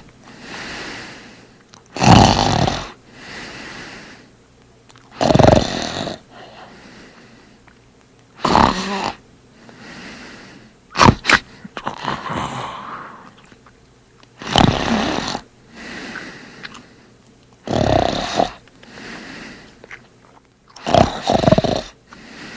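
A man snoring loudly: seven loud snores, about one every three seconds, each followed by a quieter breath out.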